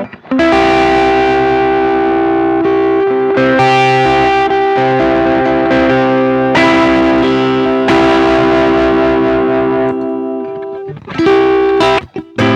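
Electric guitar played through a Ross compressor reissue and overdrive pedals, with a slightly distorted tone: long sustained notes and chords that ring on, then a brief stop and a few short choppy strums near the end.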